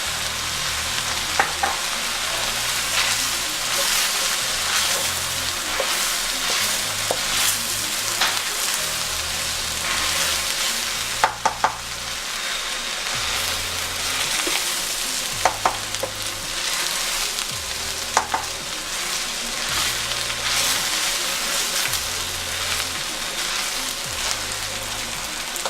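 Fried rice sizzling in a hot frying pan while it is stirred, with the utensil knocking against the pan now and then.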